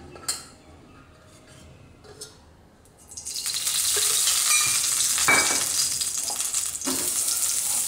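Cooking oil poured into a hot nonstick frying pan on a gas burner, sizzling steadily from about three seconds in, with a couple of clinks against the pan.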